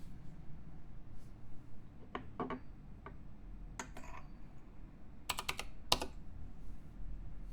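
Custom mechanical keyboard with a POM plate, lubed Ajazz Giwi linear switches and PBT keycaps, typed on in scattered keystrokes and short quick bursts of a few keys. The loudest stroke comes about six seconds in.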